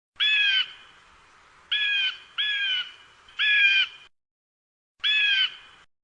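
Eagle calls played as a sound effect: five short, harsh calls of about half a second each, the third and fourth close together and the last one set apart.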